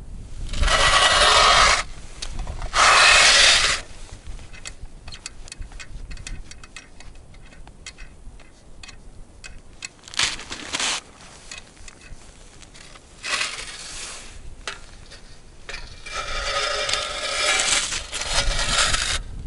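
Scraping on ice in five noisy bursts, the longest near the end, with scattered small clicks and knocks between them: a metal hand ice auger being moved and dragged across the ice into position.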